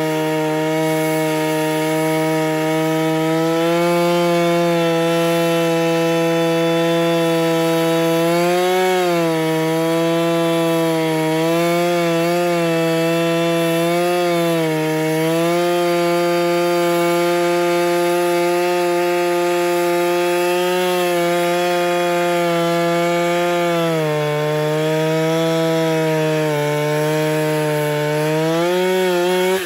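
Husqvarna 395XP two-stroke chainsaw on a Granberg Alaskan mill running at full throttle through a long rip cut in a fir log. The engine note stays high and steady, sagging slightly a few times as the chain takes load.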